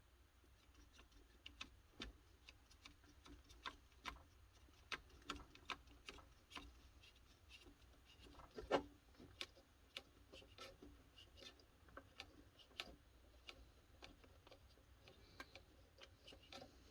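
Faint, irregular clicks and taps of hands and tools working on the tape-transport mechanism of a JVC BR-S611U S-VHS deck, with one louder knock about nine seconds in.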